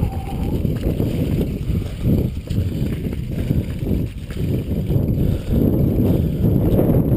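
Mountain bike rolling fast down a loose gravel and rock track: tyres crunching over stones and the bike rattling with frequent small knocks, mixed with rumbling noise on the camera microphone.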